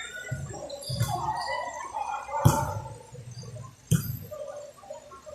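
Volleyball being hit twice, two sharp slaps about a second and a half apart, over faint background voices.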